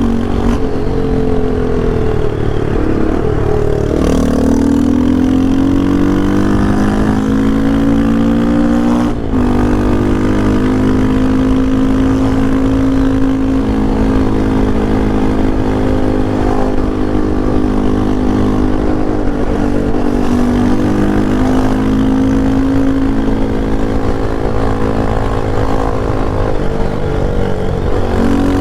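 Yamaha Lander 250's single-cylinder four-stroke engine pulling under hard riding: revs climb steadily, break off sharply about nine seconds in as a gear is changed, then hold fairly steady with brief dips for further shifts.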